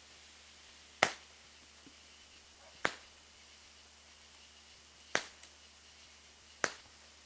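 Consumer fireworks going off: four sharp pops, a second or two apart, over a faint steady background.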